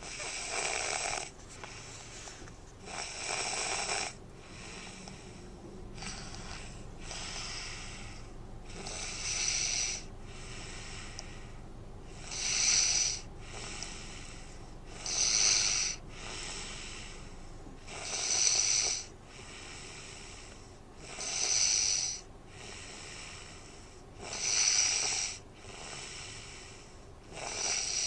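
Snoring in a steady rhythm, one loud snore about every three seconds, the snores growing louder after the first few, some with a thin high whistle in them.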